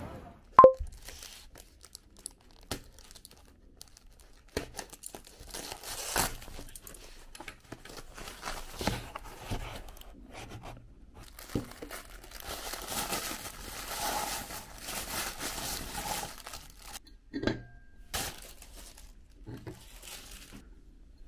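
Cardboard shipping boxes being unpacked by hand: tearing and packing material crinkling and rustling in bursts, with scattered taps and knocks as things are handled. One sharp knock about half a second in is the loudest sound.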